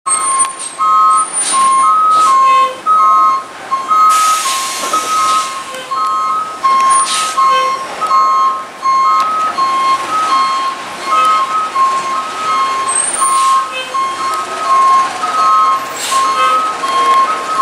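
Back-up alarm of an EDCO front-loader garbage truck reversing down an alley: a steady beeping that alternates between a high and a low tone, with a burst of air hiss about four seconds in.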